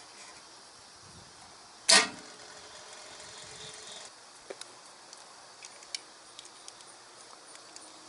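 Hand cable cutters shear through a battery cable once with a single sharp, loud snap about two seconds in. A few faint clicks from handling the tools and cable follow.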